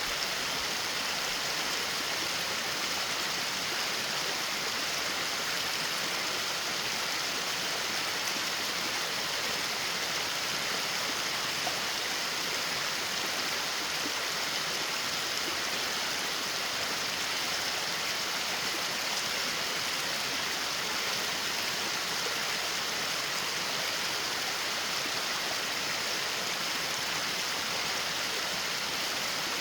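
Rushing water of a mountain creek and its waterfall, a steady, even rush.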